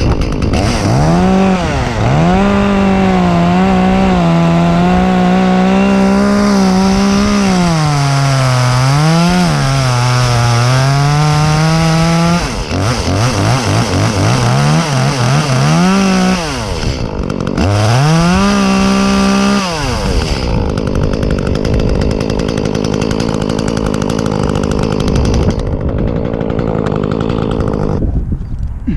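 Echo chainsaw running at high revs while cutting oak, its engine note sagging and recovering again and again as the chain bites. Around the middle the revs dip in several quick blips. In the last part the clear engine tone gives way to a rougher, steadier sound.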